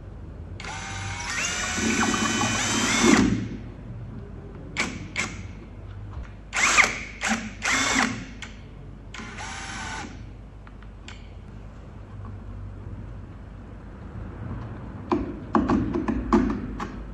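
Power drill-driver driving screws into a board: one long run of about two and a half seconds with the motor pitch rising, then several shorter bursts of a second or less.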